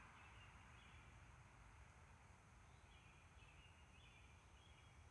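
Near silence: faint outdoor ambience with a few faint, short high-pitched chirps scattered through it.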